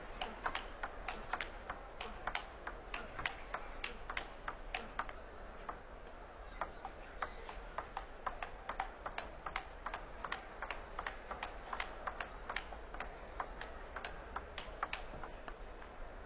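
Table tennis warm-up rally: the celluloid ball clicking back and forth off the rackets and the table in a steady rhythm of about two to three clicks a second, over faint crowd noise.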